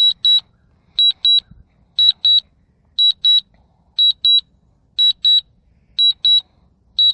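DJI Mavic 2 remote controller beeping a high double beep about once a second, the warning that the drone is flying itself back on Return-to-Home after losing its signal.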